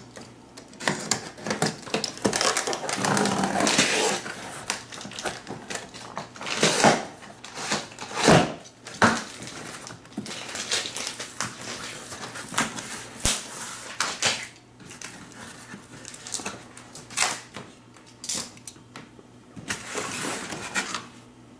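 Cardboard box being opened by hand: a utility knife slitting the packing tape, then the cardboard flaps pulled open and the styrofoam packing shifted. The sound is scattered knocks, scrapes and rustles, densest about two to four seconds in.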